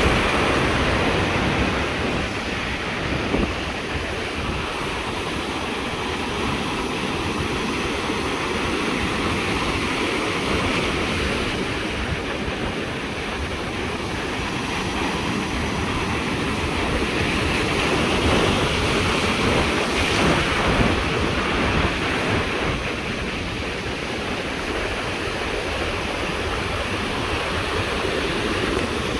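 Ocean surf breaking and washing up the shore, a continuous roar of foaming water that swells and eases as the waves come in, with wind buffeting the microphone.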